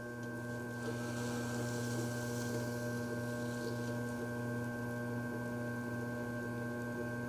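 Electric potter's wheel running, slowed down for a pull: a steady low hum with several fainter higher tones above it.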